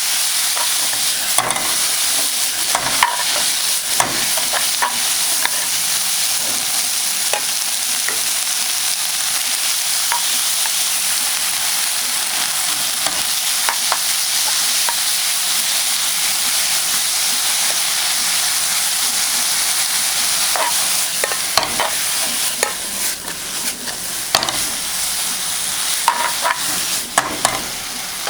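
Vegetables sizzling as they are stir-fried in a hot pan: a steady frying hiss with scattered clicks and scrapes of a utensil against the pan, more frequent near the end.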